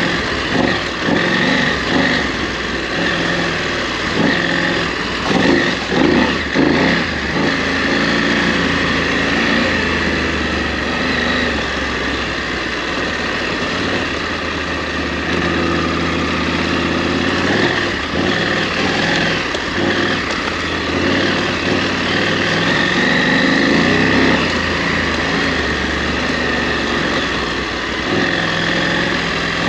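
KTM 890 Adventure R's parallel-twin engine running as the bike is ridden off-road, revs rising and falling with the throttle. A few sharp knocks come about five to seven seconds in.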